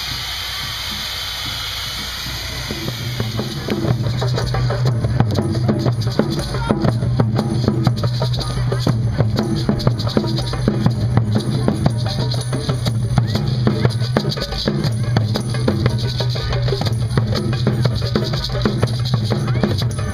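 A steady hiss from a chainsaw cutting ice gives way, about three seconds in, to a drum circle playing hand drums, frame drums and shakers in a steady, busy rhythm.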